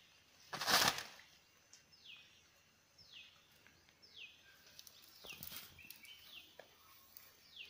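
An armful of dry leaves rustles loudly and briefly about a second in, as it is dropped onto a compost bed. After it, a bird repeats a short falling whistle about once a second, with a few softer rustles of leaves being handled.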